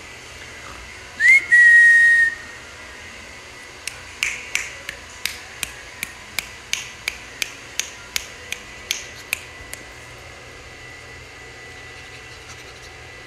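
A person whistles once, a quick rising note then held steady for about a second, then makes a run of sharp clicks, about three a second for some six seconds, calling a puppy.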